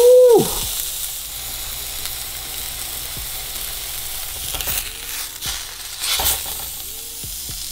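Seasoned snakehead fillet frying in a hot pan with a steady sizzle. A brief pitched squeak comes right at the start, and a few light scrapes follow in the second half as the fillet is moved in the pan.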